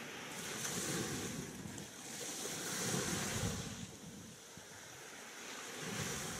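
Sea waves washing onto a beach, the hiss swelling and falling back in about three surges.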